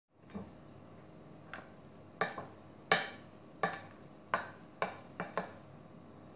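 A spoon stirring flour into a thickening dough in a glass bowl, knocking against the glass in irregular clinks about once or twice a second.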